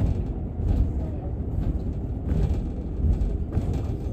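Steady low rumble of a moving city bus heard from inside, with short rattles every half second or so.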